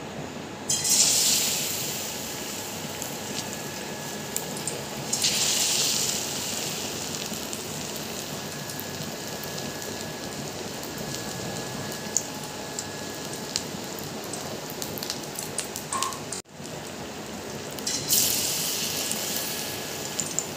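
Batter-coated ash gourd slices deep-frying in hot oil: a steady crackling sizzle that flares up loud three times, about a second in, about five seconds in, and near the end.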